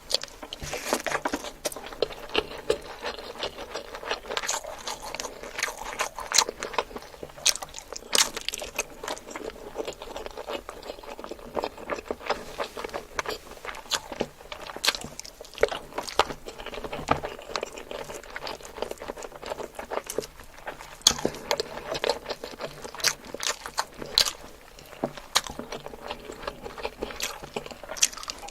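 Close-miked eating: chewing and crunching with many irregular sharp clicks and smacks of the mouth.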